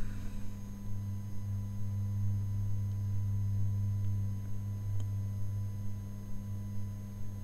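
Steady low electrical hum with faint thin high tones above it, unchanging throughout; a single faint click about five seconds in.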